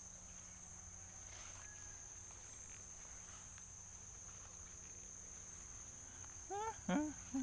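Steady, high-pitched chorus of insects. Near the end, two or three short rising calls stand out over it.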